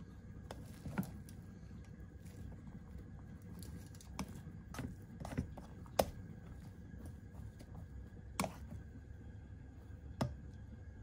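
Plastic rice paddle stirring cooked bean rice in an electric rice cooker's inner pot, knocking against the pot in irregular sharp clicks. A low steady hum runs underneath.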